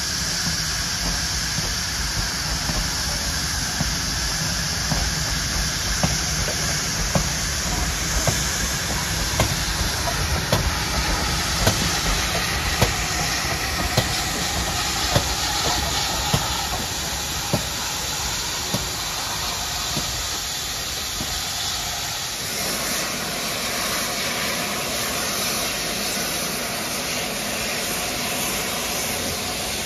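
Train of carriages hauled by a steam pannier tank engine rolling slowly past, its wheels clicking over the rail joints about once a second over a steady hiss. After a change about three-quarters of the way in, only a steady steam hiss remains.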